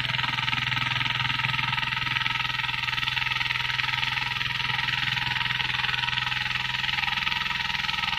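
Single-cylinder diesel engine of a walk-behind two-wheel hand tractor running steadily, a low even chugging, with a steady high hiss over it.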